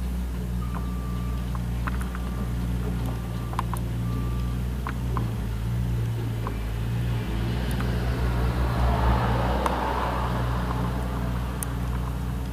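Mustang 2054 skid steer's diesel engine running steadily, with sharp metallic clanks from its steel over-the-tire tracks and short repeated beeps in the first half. Partway through, a broad rushing noise swells up and fades away.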